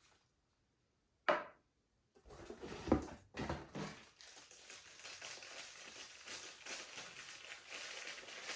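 Packaging crinkling and rustling as a vacuum accessory is unwrapped, after one short sharp sound about a second in; the crackles are loudest about three seconds in.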